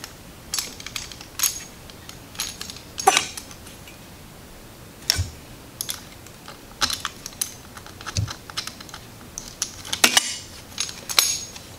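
Irregular light clicks and metallic clinks from a small hand driver working a screw out of a motorcycle fuel pump assembly's plastic housing.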